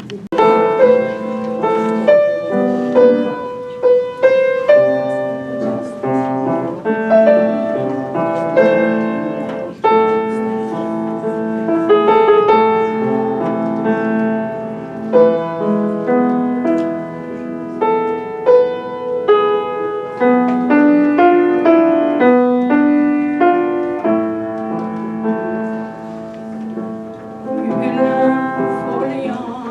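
Solo piano playing an instrumental introduction of chords and melody notes, the accompaniment to a song that the performer sings herself.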